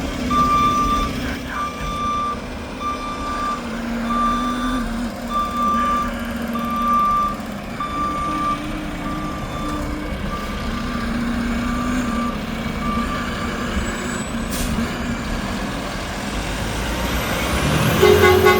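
Mack garbage truck with a McNeilus front-loader body reversing: its backup alarm beeps about once a second for roughly thirteen seconds and then stops, over the low running of its diesel engine.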